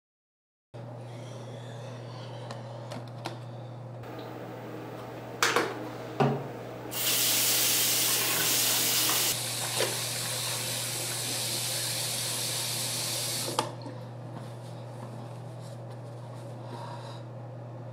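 Water splashing and running in a small bathroom for about six seconds, louder at first, then stopping abruptly with a click. Two sharp knocks come just before it, and a steady low hum runs underneath throughout.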